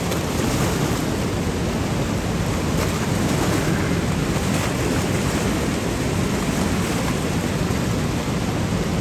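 Fast-flowing river water rushing in a loud, steady, unbroken wash of noise.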